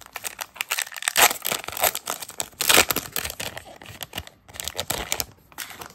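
Foil wrappers of Panini Prizm Monopoly basketball card packs crinkling as the packs are handled by hand, and one being torn open: a dense, irregular run of crackles and rips.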